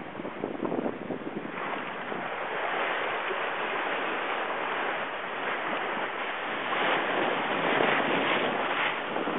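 Wind buffeting the microphone over the rush of sea water along a sailing yacht's hull, a steady noise that grows louder about a second and a half in.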